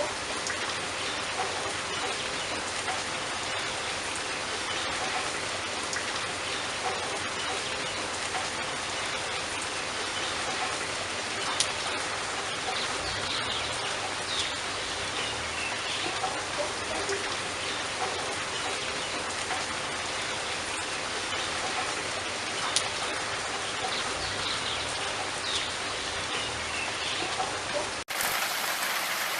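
Steady rain falling, an even hiss with scattered individual drops ticking. About a second before the end it cuts abruptly to another rain recording.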